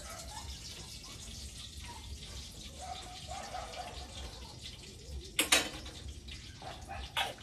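Cooking oil sizzling and crackling in a hot wok on a gas stove, with two sharp metal clanks near the end as a small metal pot knocks against the pan.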